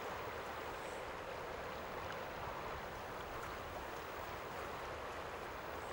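Steady, even outdoor background noise, a faint hiss with no distinct events in it.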